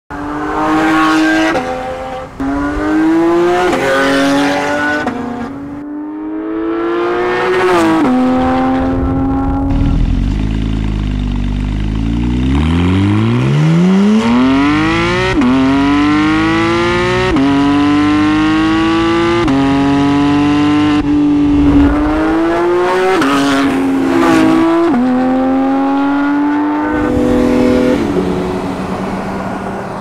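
Porsche 991 GT3's naturally aspirated flat-six through an ARMYTRIX valvetronic exhaust, pulling through the gears: the pitch climbs in each gear and drops at each upshift. About ten seconds in it falls to a low rumble, then climbs in one long sweep from low revs before a run of quick upshifts. Near the end it settles to a steady cruise.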